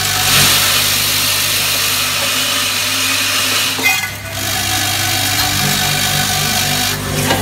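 Vibratory bowl feeders of a screw packing machine running: a steady low electromagnetic hum under the dense rattle of steel screws jostling along the bowl tracks, with a brief click just before the four-second mark.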